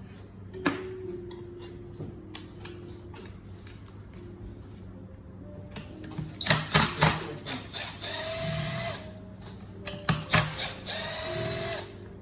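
Clicks and knocks of metal parts and tools being handled during the dismantling of a core drill, with two short bursts of a small motor whirring, about eight and eleven seconds in, over a low steady hum.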